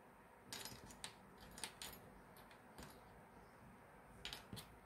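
Small metal hardware (copper ring terminals, nuts and screws) clinking lightly as it is handled and set down, in a few scattered clusters of clicks.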